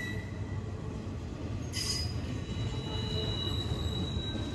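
Double-stack intermodal freight train rolling past: a steady low rumble of wheels on the rails, with thin high-pitched wheel squeals that come and go, the strongest in the second half. A brief hiss about two seconds in.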